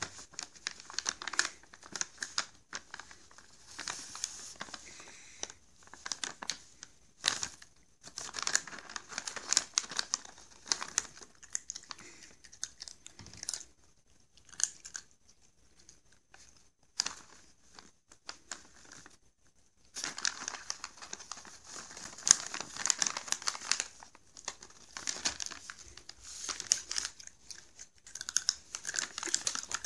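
Crinkly plastic cat-treat pouch crinkling in quick bursts as a cat noses into it and a hand holds it. There are two long busy spells with a quieter middle stretch of scattered small clicks.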